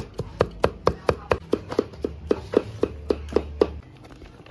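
Cleaver chopping raw pork into mince on a wooden chopping block, a steady run of about four strokes a second that stops near the end.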